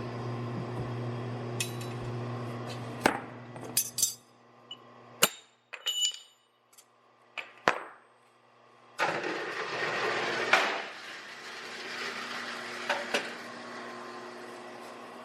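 Steel drift being knocked out of a forged hammer's eye: several sharp metal-on-metal taps and clinks with a high ring, between about three and eight seconds in. A steady hum underlies the first few seconds, and a loud rushing noise starts about nine seconds in.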